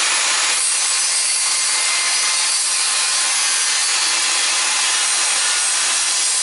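Harbor Freight budget corded circular saw with a 24-tooth carbide-tipped blade, running at full speed and cutting steadily through an acrylic plastic sheet. The sound changes about half a second in as the blade bites into the sheet. The saw runs smoothly, its blade now properly seated.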